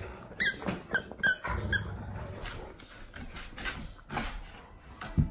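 A dog chewing a plush squeaky toy, the squeaker squeaking sharply several times in quick succession over the first couple of seconds, then more softly as the chewing goes on.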